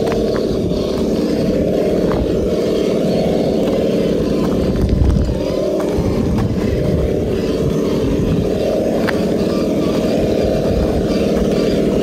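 Simulated engine rumble played through a Hobbywing ESS Dual+ engine sound system speaker on a Traxxas TRX-4 scale RC crawler, running steadily as the truck crawls, with a brief louder swell about five seconds in. A few faint ticks are heard over it.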